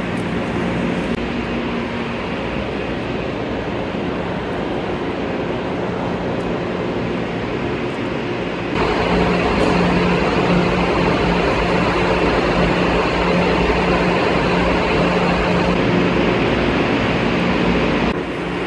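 Steady hum and rushing noise of a Haramain high-speed train standing at a station platform, with a constant low drone. It gets abruptly louder about nine seconds in and drops back just before the end.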